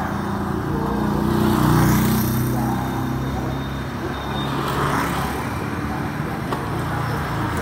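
Motorbikes and scooters passing on a street, their small engines swelling and fading. The loudest pass comes about two seconds in, and another about five seconds in.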